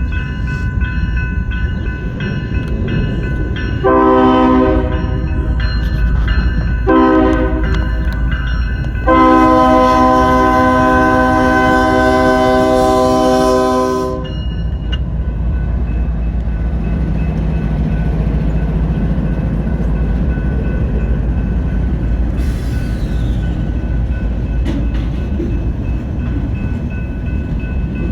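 Norfolk Southern diesel locomotive air horn sounding three blasts, the last the longest and loudest. A steady low rumble of a train runs underneath and continues after the horn stops.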